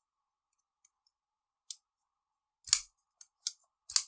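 Civivi Elementum II button-lock folding knife being flicked open and shut, a handful of sharp metallic clicks with two louder snaps in the second half as the blade locks and closes. The action is running freely now that paint rubbing on the button lock has been cleared and the knife cleaned and lubricated.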